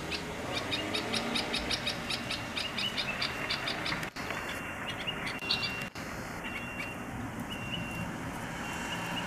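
Small birds calling: a fast run of sharp repeated chirps, about five a second, for the first few seconds, then several short high whistled notes.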